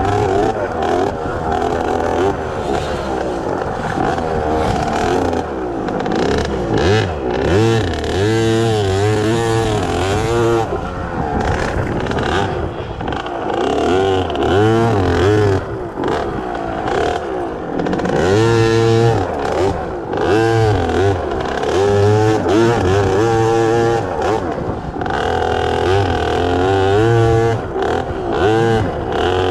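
Small two-stroke kids' dirt bike engine (KTM 50) revving up and down over and over as the throttle is opened and closed, with some clatter.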